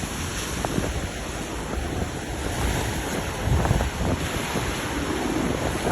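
Sea waves washing in, with wind rumbling on the microphone.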